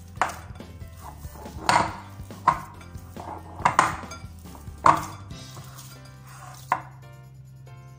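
Dough being kneaded by hand in a glass bowl: irregular knocks and thuds of the bowl and dough, roughly once a second, the last one about two-thirds of the way in. Quiet background music runs underneath.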